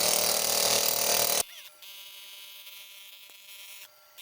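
A small handheld electric motor tool runs loudly for about a second and a half, then cuts off sharply, leaving a faint steady hum.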